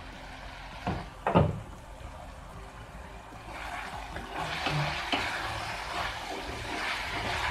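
Two knocks of a spatula or utensil on a non-stick kadai about a second in, then a spatula scraping and stirring a thick potato-and-tomato masala as it fries in the pan, with repeated strokes growing louder toward the end.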